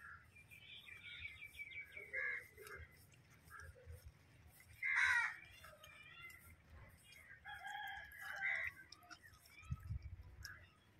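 A rooster crowing and chickens calling, several separate calls, the loudest a short call about five seconds in.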